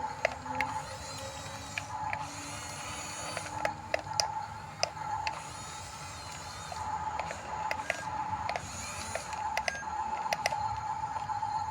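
Radio-controlled bulldozer's electric drive motors and gearboxes whining as it works, the whine coming and going, with many irregular sharp clicks from its moving parts.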